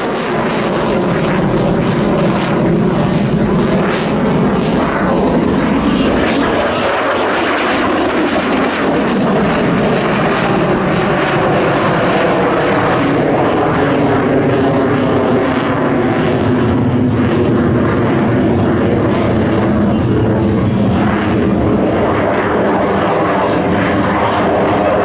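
Royal Canadian Air Force CF-18 Hornet fighter jet, its twin turbofan engines running loud and steady, the engine note shifting slowly in pitch.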